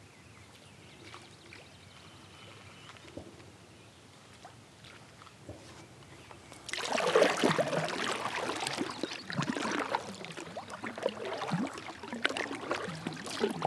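Kayak paddle strokes, water splashing and dripping off the blades in an uneven rhythm, starting about halfway through after a quiet stretch with a few faint ticks.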